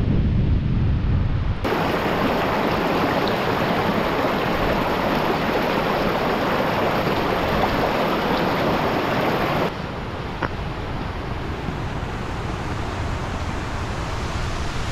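Wind buffeting the microphone, then a sudden change to a mountain stream rushing loudly over rocks for about eight seconds. Near the end the water rush drops to a quieter, steady level.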